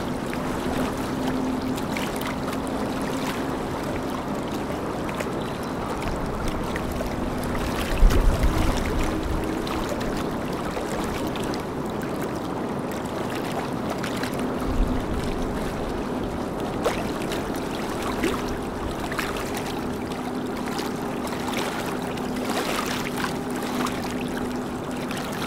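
Boat engines running with a steady low hum over the wash of water from their wakes. Two brief low rumbles break in, the louder about eight seconds in.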